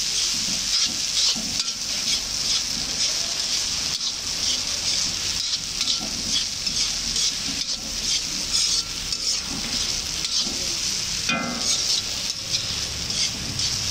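Rice and vegetables sizzling in a large black wok while a metal spatula stirs and scrapes through them against the pan in repeated irregular strokes.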